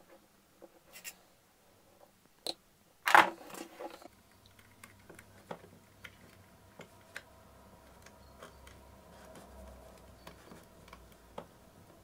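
Small clicks and scratches of hands handling stripped mains wires and the plastic casing of a Sonoff Basic Wi-Fi switch while fitting the wires into its terminals. One sharp, louder knock comes about three seconds in.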